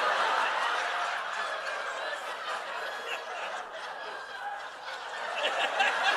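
Studio audience laughing after a joke, easing off a little midway and swelling again near the end.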